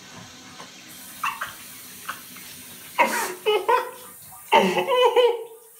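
Bidet toilet's water spray hissing steadily, the noise filling out at the top from about a second in, while a man breaks into loud laughing yelps twice in the second half.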